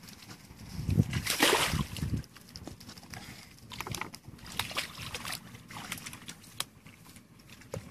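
Shallow muddy water splashing and sloshing irregularly as hands grope through it for fish, with scattered small clicks. The loudest burst comes about a second and a half in.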